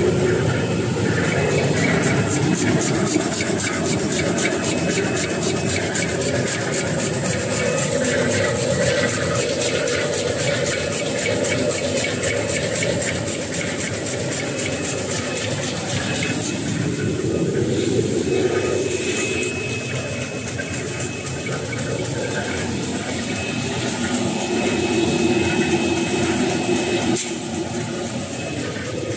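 Two-line facial tissue folding machine running: a loud, steady mechanical din of rollers and folding gear with a fast, even rattle and a constant high whine over it.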